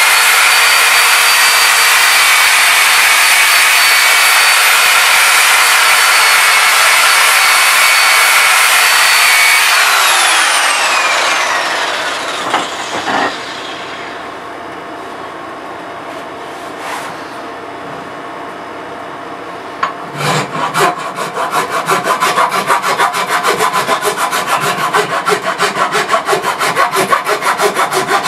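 Angle grinder running steadily as it smooths a wooden axe handle, then spinning down about ten seconds in. After a quieter spell, a hand rasp scrapes the wood in quick repeated strokes through the last third.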